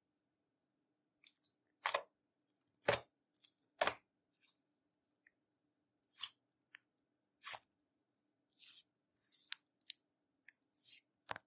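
Irregular sharp snips and crunches, roughly one a second, as makeup is cut and broken up with scissors.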